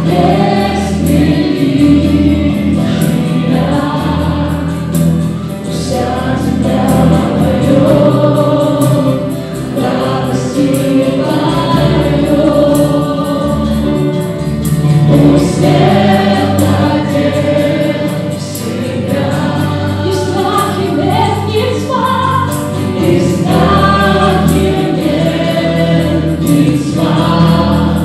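Live worship band: a group of men and women singing together into microphones, with acoustic guitar, electric guitar and a Roland keyboard accompanying them, the band playing steadily under the voices.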